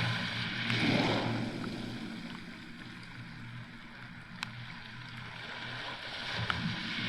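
Small waves washing up on a beach, with one surge about a second in and another near the end. A few sharp ticks of raindrops striking the camera come through between them.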